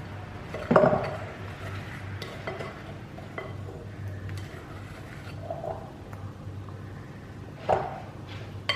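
A spoon knocking and scraping against a bowl as sticky chocolate fridge-cake mixture is spooned in: one sharp knock about a second in, a few light clicks, and another knock near the end.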